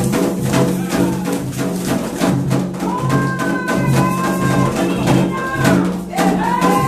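Music: drums beating a steady rhythm at about three beats a second, with voices singing over it from about a third of the way in.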